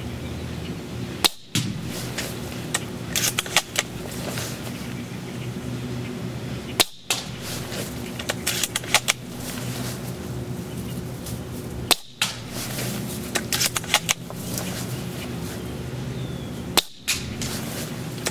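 AGM MK96 spring airsoft bolt-action sniper rifle being fired and reloaded again and again. A sharp shot snaps about every five seconds, four times, and each is followed by a run of clicks as the bolt is worked.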